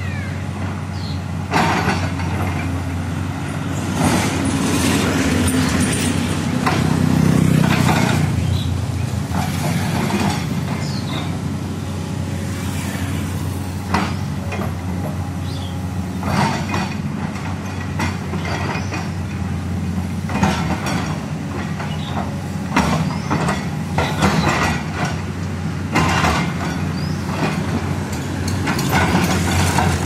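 LiuGong 922D crawler excavator's diesel engine running steadily under digging load, working harder for a couple of seconds about six seconds in, with intermittent clanks and knocks.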